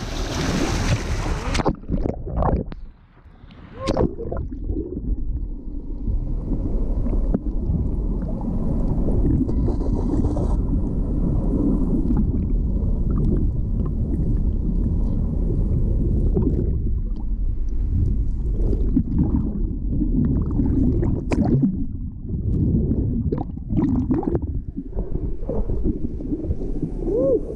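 Muffled underwater water noise: low gurgling and rumbling with scattered knocks, as heard through a submerged camera beside a hooked tarpon. A short burst of wind noise at the very start.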